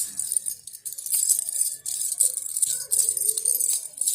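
Baby's toy rattle being shaken in quick, irregular bursts of bright, high rattling.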